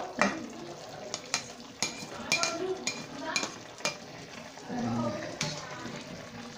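A spatula knocking and scraping chopped spring onions off a ceramic plate into a pan of boiling coconut-milk stew, then stirring, with sharp clicks of utensils against the plate and pan. A soft sizzle of the boiling stew runs underneath.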